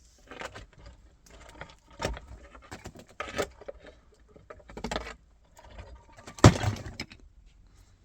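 Scattered knocks and rattles of things being handled, with one sharp thump about six and a half seconds in.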